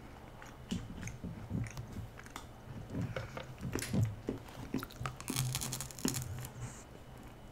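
Biting and chewing hard gingerbread from a gingerbread house, close up: small crunches and clicks throughout, with a longer, louder crackling crunch about five and a half seconds in.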